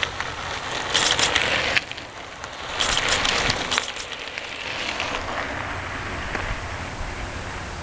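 Mountain bikes riding past in a group, knobby tyres crackling over dirt and gravel, in two loud bursts, one about a second in and a longer one about three seconds in.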